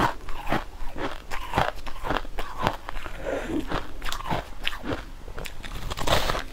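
Biting and chewing of crunchy, snow-like frozen ice chunks close to the microphone: a run of crisp, irregular crunches.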